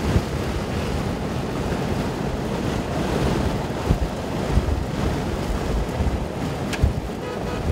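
Wind rushing in through an open window of a moving car and buffeting the microphone, with road noise underneath and several heavier low thumps of wind on the microphone.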